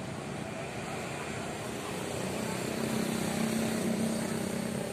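Road traffic noise, with one engine's hum growing louder about two seconds in and easing off near the end as a vehicle passes.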